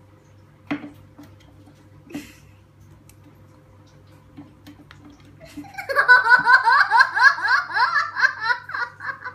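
A young girl giggling: a loud run of quick, high-pitched laughs that starts about six seconds in and goes on for about three seconds. Two short knocks come earlier.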